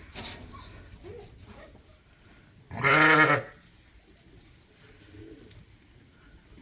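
A sheep bleats once about three seconds in: a single loud, wavering call lasting about half a second, over faint barn background noise.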